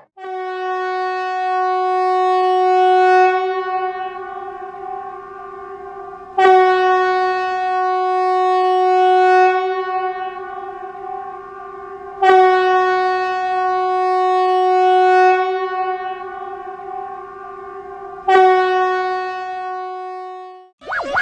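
A warning horn sounding one steady, unwavering note. It starts abruptly four times, about every six seconds, and each blast fades before the next begins.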